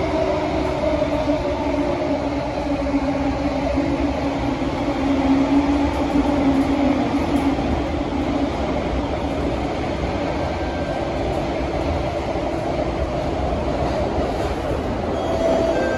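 Inside a Kawasaki–CRRC Sifang CT251 metro train running underground: a steady rumble of wheels on rail, with a whine that fades about halfway through. The train is slowing into the station near the end.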